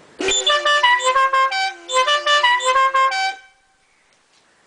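Stebel five-pipe musical air horn playing a quick tune of short stepped notes for about three seconds, then stopping. Two of its pipes have been swapped, so it plays a changed tune rather than the horn's original one.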